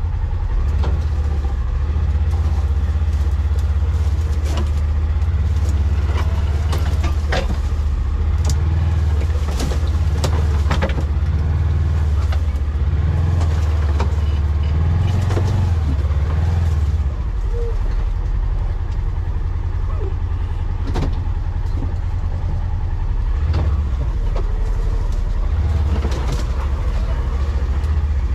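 Polaris Ranger XP 1000 side-by-side's twin-cylinder engine running steadily as it drives slowly through brush, heard from inside the cab, with scattered knocks and rattles. The engine note drops a little past halfway.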